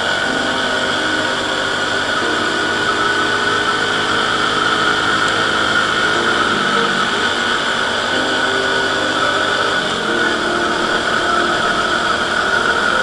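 Small motorcycle engine running at steady throttle, with wind rushing over a helmet-mounted action-camera mic. The engine pitch holds and then shifts a few times as road speed changes.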